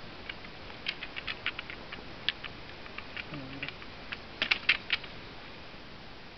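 Scattered light plastic clicks and taps from handling an MSR MiniWorks EX pump water filter and its bottle after pumping, with a quick run of several clicks about four and a half seconds in.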